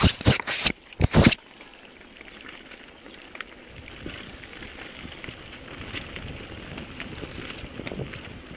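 Mountain bike rolling downhill over a loose gravel and rock trail: tyres crackling over stones, with small ticks and rattles from the bike. In the first second or so, a quick series of loud thumps.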